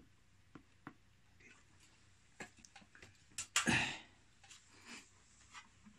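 Light clicks and taps from hands handling the wires and small circuit board inside an opened inverter, with one louder noise lasting about half a second around the middle.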